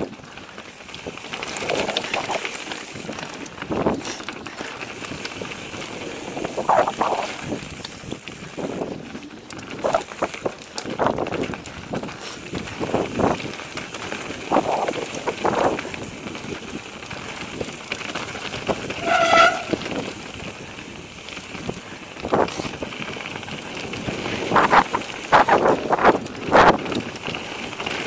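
Mountain bike riding down a rocky gravel forest trail: tyres on loose stone and the bike rattling over bumps, with wind noise on the microphone. There is a short high squeal about two-thirds of the way through.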